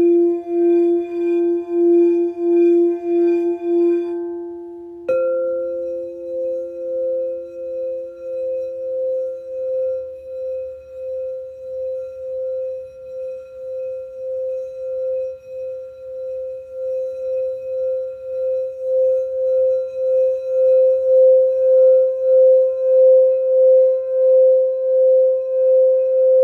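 Singing bowls being played. A lower bowl rings with a wavering, pulsing tone and then dies away over several seconds. About five seconds in, a higher bowl is struck and then sung around its rim, so that its steady pulsing tone grows louder toward the end.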